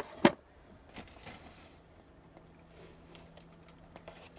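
Two sharp knocks at the very start, then a short rustling scrape about a second in, then quiet with a faint hum. These are handling knocks and scuffs from work at the battery bank while the batteries are being shifted.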